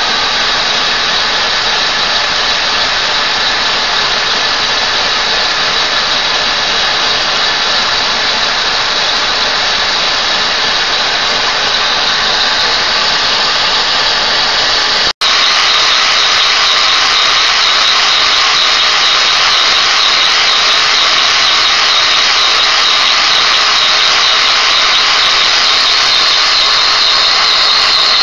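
Vacuum-driven Lego model vibrating-lever steam engine with opposed, double-acting pistons, running: a steady loud rush of air through its valves and ports, with no knocking now that its broken piston has been fixed. After a cut about 15 seconds in it is louder, with a high tone close to a whistle.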